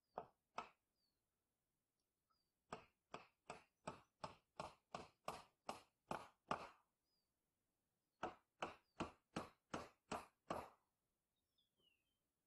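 Hammer driving nails into the wooden roof boards: two blows, then a run of about eleven steady blows about three a second, a short pause, and another run of about eight. Faint bird chirps between the runs.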